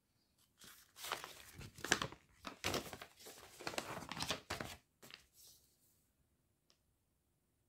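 Clear plastic packaging bag crinkling as it is handled, a run of irregular rustles that stops about five and a half seconds in.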